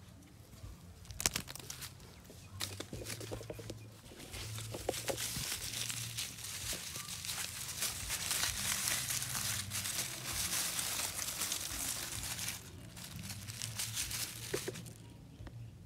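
Dry leaf litter crackling and rustling as a hand rummages and grabs through it. It starts as scattered sharp crackles about a second in, thickens into dense continuous crackling through the middle, and eases near the end.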